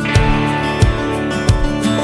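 Background music: guitar-led track with a steady beat of about three beats every two seconds.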